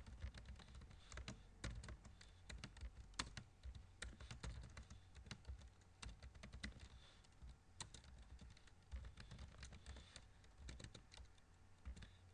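Typing on a computer keyboard: a faint, irregular run of key clicks as code is entered.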